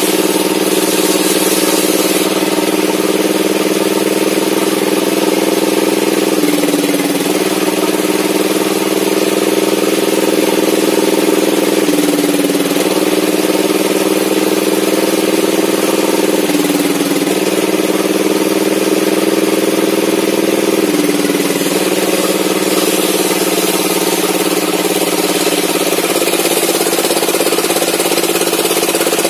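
Homemade sawmill table saw and its drive running loudly and steadily while an old mahogany beam is fed along it, the hum dipping in pitch briefly four times.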